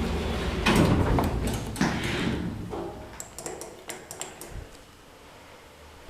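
Passenger lift's sliding doors running, with several clunks in the first two seconds and a cluster of small light clicks about three to four seconds in, after which the sound fades.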